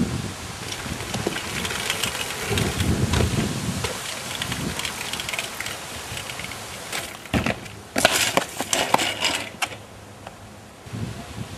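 Crunching and rattling of wheels rolling over rough ground on a wall-ride run, with a burst of sharp clatters about eight to ten seconds in.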